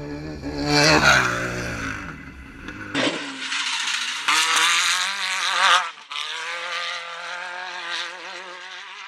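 Off-road race car engines at racing speed on a dirt track. First a car approaches and passes, its engine pitch dropping sharply. About three seconds in, a different shot: a race buggy powers through a loose dirt turn, its engine pitch wavering as the throttle is worked, over a hiss of spraying dirt.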